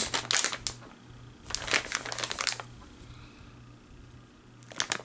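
Plastic bag of cheese curds crinkling as it is handled, in two spells of rustling in the first half and a brief crinkle near the end.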